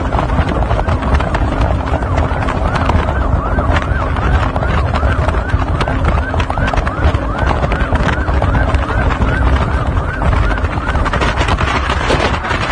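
Motorboat running flat out on open water: loud engine and wind buffeting the microphone. From about three to ten seconds in, a quickly repeating rising-and-falling whoop sounds over it.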